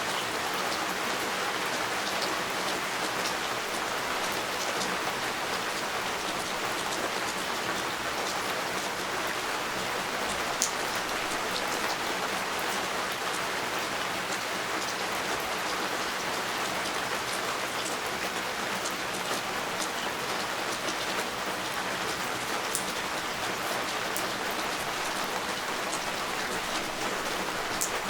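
Steady rain falling, an even hiss with scattered sharp drop ticks, one a little louder about ten seconds in.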